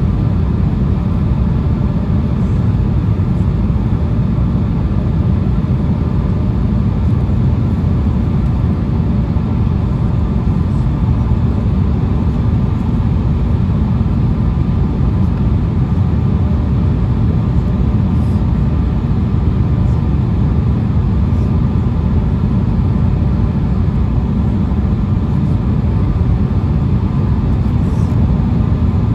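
Steady, even cabin rumble inside an Embraer E175 airliner on final approach with the landing gear down: airflow and its GE CF34 turbofan engines, heavy in the low range with a faint steady hum above.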